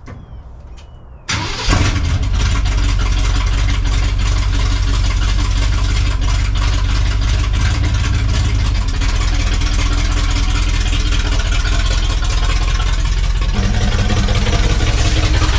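Chevy K10 pickup's small-block 350 V8 engine running at a steady idle, coming in abruptly about a second in; its low note shifts slightly near the end.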